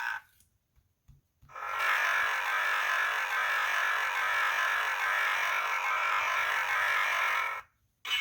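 Two faint clicks, then a children's sound book's small speaker plays a steady, buzzy electronic sound effect for about six seconds. The effect cuts off abruptly.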